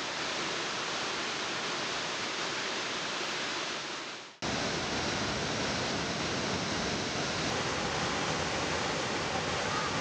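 Steady rush of a distant waterfall, Sutherland Falls, fading out about four seconds in. Then the louder, deeper rush of Huka Falls breaks in suddenly: the Waikato River's heavy flow pouring through a narrow rock chute, steady to the end.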